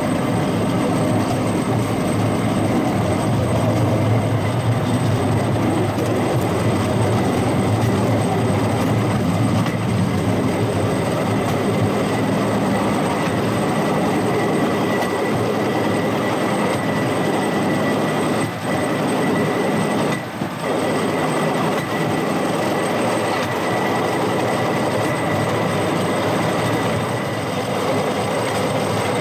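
Rail-mounted golf cart running along the railway track: a steady rumble of its wheels on the rails with a thin whine held throughout, dropping briefly twice about two-thirds of the way in.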